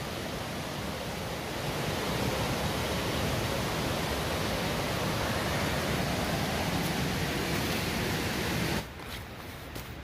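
Steady rushing noise of a waterfall's falling water, even and without pitch. It grows a little louder about two seconds in and drops away abruptly near the end.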